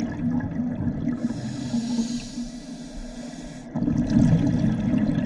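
Scuba diver breathing underwater through a regulator: exhaled bubbles rushing out, a hissing inhale through the demand valve from about a second in, then bubbles again near the end.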